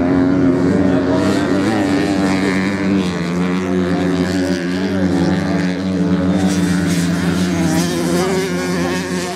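Several motocross dirt bike engines racing on a sand course, their pitch rising and falling as the riders open and close the throttle.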